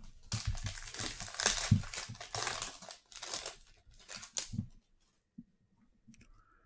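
Foil wrapper of a baseball card hobby pack being torn open and crinkled: a run of dense crackling of about two and a half seconds, a brief break, then a shorter run, stopping about five seconds in.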